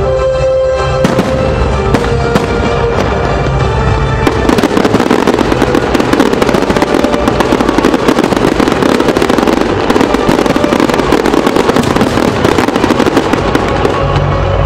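Fireworks going off over loud show music, with a few single bangs and then, from about four seconds in, a dense rapid crackle of many pops that lasts nearly to the end.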